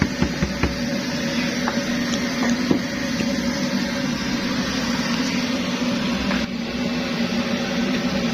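Kerosene pressure stove (primus) burning with a steady rushing hum, with a few light clicks in the first second or so.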